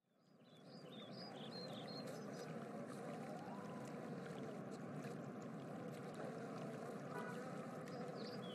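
Steady rush of flowing stream water, fading in about half a second in, with a few short faint bird chirps near the start.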